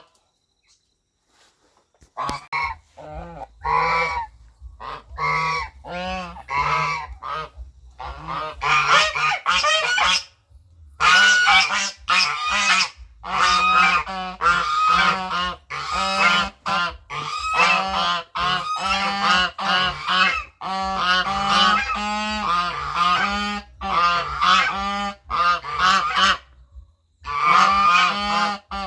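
Goose honking over and over, starting about two seconds in: a quick run of short, harsh calls with brief pauses between bursts.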